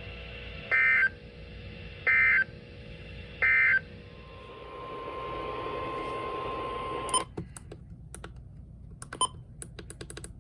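Emergency Alert System end-of-message signal: three short, loud bursts of warbling digital data tones about a second apart, marking the end of the warning broadcast. Then a faint steady high tone over hiss for a few seconds that cuts off suddenly, followed by scattered clicks.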